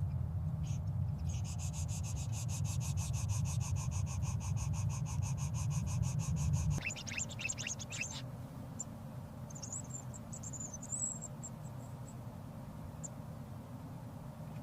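A rapid, evenly pulsing high insect trill over a low rumble, which stops about seven seconds in. A few quick falling bird chirps follow, then faint high twittering.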